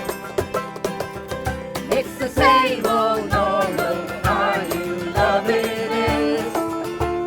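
Background music from a song, here without words: a steady beat under chords, with a wavering melody line coming in about two and a half seconds in.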